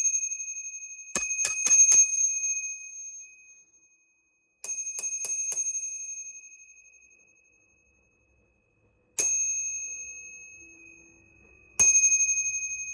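Bicycle bell, a cheap Chinese-made one with an Apple AirTag hidden inside, rung loudly: two quick runs of about four dings each, then two single dings, each ringing on and fading.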